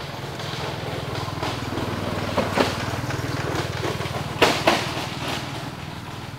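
A motor running steadily with a low hum. Two sharp clicks come about two and a half seconds in, and two louder ones near four and a half seconds.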